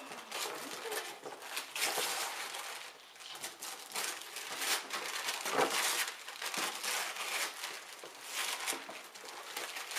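Gift wrapping paper being torn off a box and crumpled, in irregular rustling bursts.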